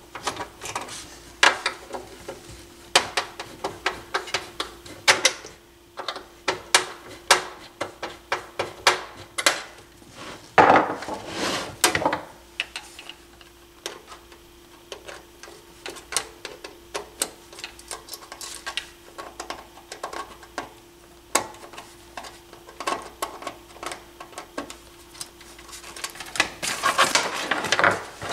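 Irregular clicks, knocks and clatter of hands and tools working on the wooden cabinet of a Fisher 550T stereo receiver as it is taken apart, with a louder scraping rustle about ten seconds in and again near the end. A faint steady hum runs underneath.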